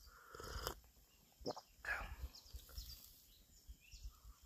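A person slurping sips of hot soup from a mug: one short slurp at the start, then a few faint mouth clicks. Small birds chirp faintly in the background.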